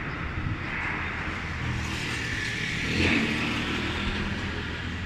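Heavy truck's diesel engine idling steadily, with a brief louder swell about three seconds in.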